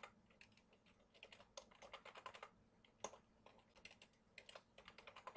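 Faint computer keyboard typing, keystrokes coming in several short runs with pauses between them.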